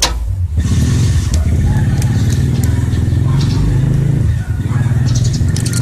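A small engine running steadily, starting about half a second in, with a few sharp clicks near the end.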